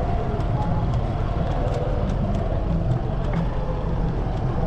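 Steady din of a busy street market: traffic noise mixed with a murmur of voices.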